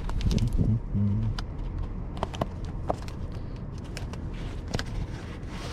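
Car documents being handled and leafed through: scattered short clicks and rustles over a steady low hum, with a brief hummed voice sound near the start.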